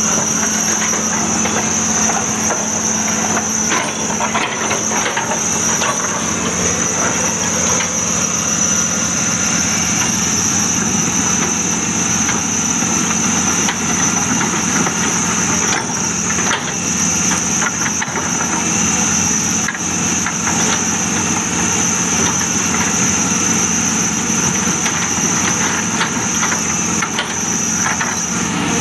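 Cat 320D long-reach excavator's diesel engine running steadily under work, with a steady high-pitched whine over it and a few short knocks.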